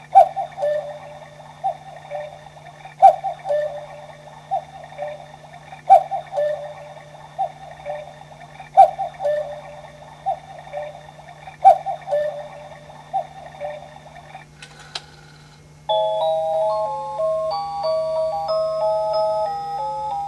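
Hermle quartz cuckoo clock sounding its electronic two-note cuckoo call over and over while the bird pops out, with a knock from the bird mechanism about every three seconds. About fifteen seconds in the calls stop and the clock's electronic melody starts, a tune of evenly held notes.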